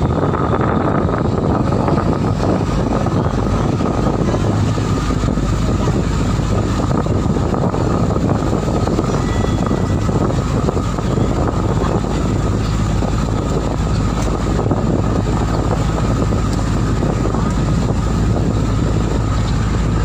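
Boat engine running at a steady drone while the boat is under way, mixed with the rush of water and wind.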